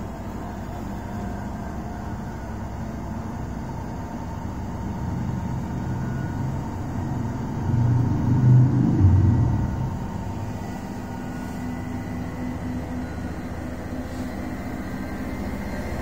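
Bosch front-load washing machine spinning its drum on the spin cycle, set to 1,000 rpm: a steady motor hum and drum rumble. The rumble swells louder for about two seconds, roughly eight seconds in, then settles again.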